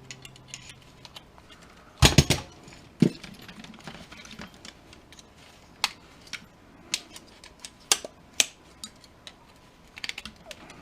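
Metal scrap parts from an old electric stove being handled and dropped: a loud clatter of metal on metal about two seconds in, another knock a second later, then scattered light clinks and clicks.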